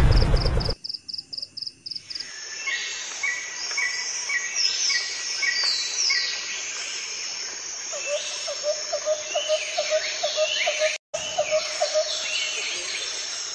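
Birdsong ambience: several birds chirping with short falling and repeated high notes, opening with a fast train of short high pulses. In the second half a lower call repeats about three times a second, and the sound cuts out for an instant about eleven seconds in.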